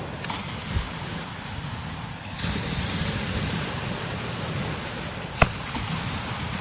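Strong desert wind blowing steadily, with a low rumble of wind buffeting the microphone and a hiss that swells about two and a half seconds in. A single sharp click sounds about five seconds in.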